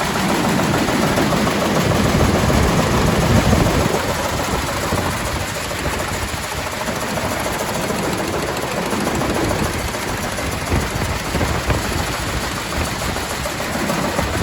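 Clipper grain cleaner running, with a steady mechanical rattle.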